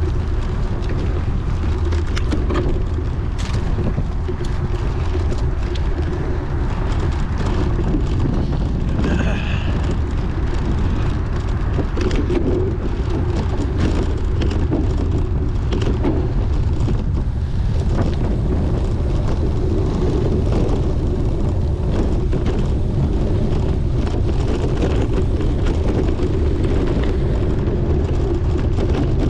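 Steady wind rushing over the microphone of a camera carried on a moving bicycle, with frequent short clicks and rattles as the bike rides over rough ground.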